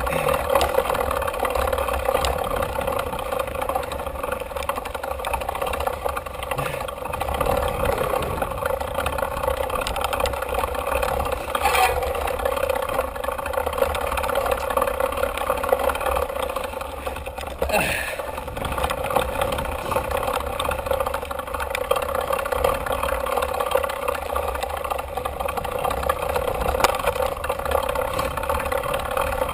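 Mountain bike riding fast down a dirt singletrack, heard through a handlebar-mounted GoPro: a steady rush of tyre and wind noise with the bike rattling. A couple of sharper knocks come about 12 and 18 seconds in.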